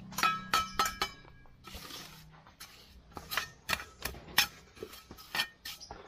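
Steel mason's trowel knocking and tapping red clay bricks into their mortar bed: a run of about a dozen sharp clinks, several ringing briefly, with a short scrape of the trowel about two seconds in.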